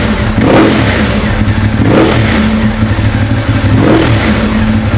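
A Ducati Diavel's L-twin engine, breathing through an aftermarket Yoshimura exhaust, is blipped with the throttle over a steady idle. There are three sharp revs, near the start, about two seconds in and about four seconds in. The exhaust gives bangs 'like fire shots'.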